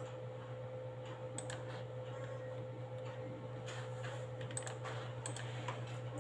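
Irregular clicks of a computer keyboard and mouse being operated, over a steady low hum.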